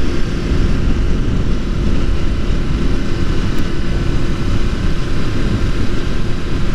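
Motorcycle riding at a steady cruising speed: the engine runs with an even drone under a heavy, fluttering rush of wind.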